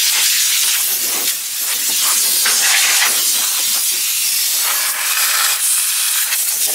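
Compressed-air blow gun blasting air over a mower deck and its pulleys, a loud steady hiss that wavers a little as the nozzle moves.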